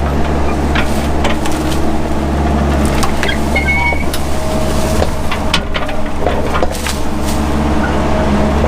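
Mini excavator's engine running steadily under load while it clears brush. Many sharp cracks and snaps of breaking brush and small trees sound over it, with a few brief squeaks.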